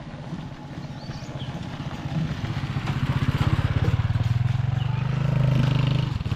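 Motorcycle engine running as it approaches, growing steadily louder with a rapid low pulsing and peaking near the end.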